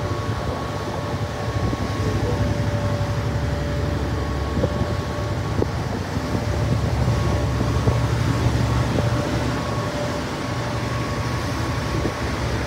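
Boat engine running steadily under way: a constant low rumble with a faint steady whine over a rushing hiss.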